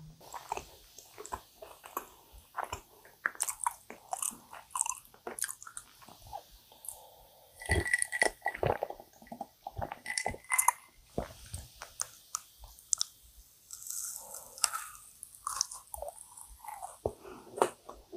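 Close-miked mouth sounds of chewing dense, sticky honey-fried yakgwa, with wet smacks and soft clicks. In the middle comes a drink from a glass of iced americano, a cluster of sharper clicks and a brief glassy ring as the glass and ice are handled, then the chewing resumes.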